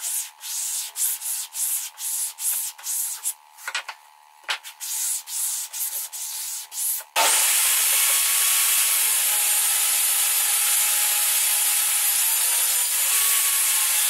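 Quick back-and-forth hand-sanding strokes on a wooden sled runner, about three a second. About seven seconds in it gives way abruptly to the loud, steady noise of a portable table saw running as its blade cuts the kerf through the sled base.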